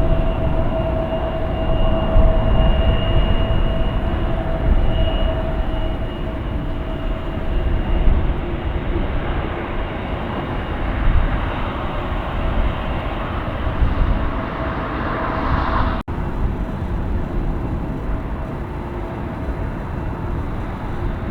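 Jet airliner engines running: a heavy rumble with a steady whine above it. The noise builds, then cuts out for an instant about three-quarters of the way through and carries on after.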